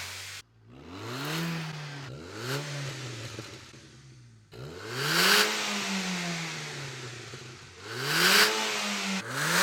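Audi A4 B7's 2.0 TFSI turbocharged four-cylinder, revved about five times from idle, each rev rising and falling back. It breathes through a 4-inch muffler with its adjustable dB killer fitted, the "neighbor mode", which keeps it pretty quiet.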